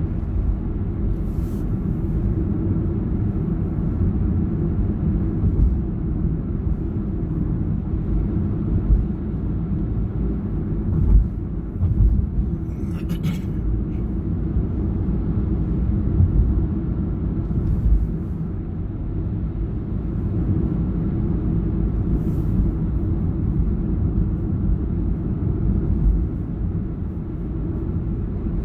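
Steady low road and engine rumble heard inside a moving car's cabin while cruising. A few faint, brief high-pitched ticks come through, the longest near the middle lasting about a second.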